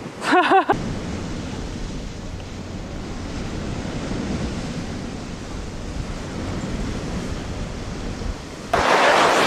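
Wind rushing over the microphone on an open beach, a steady noise that jumps suddenly much louder near the end. A short wavering, voice-like call comes in the first second.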